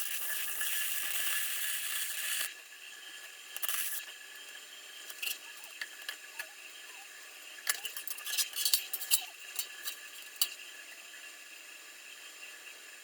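Flux-core welder laying a short weld on steel, a sizzling crackle for about two and a half seconds, with a second brief burst about a second later. Then a scatter of small metal clicks and clinks.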